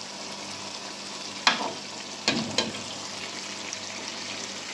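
Chicken pieces sizzling in oil and masala in a metal pot, a steady hiss at the bhuna stage once the chicken has been browned. A metal ladle clinks against the pot three times around the middle.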